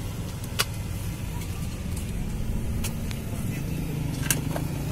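Steady low rumble of road traffic, with a few sharp clicks of plastic cups and lids being handled.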